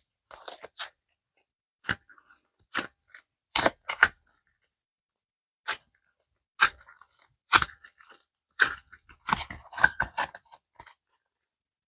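Unboxing super clay: irregular sharp clicks and crackles of plastic packaging and tubs being handled, coming more thickly near the end.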